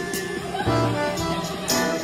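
Dance music playing, with a repeating bass line and a regular beat.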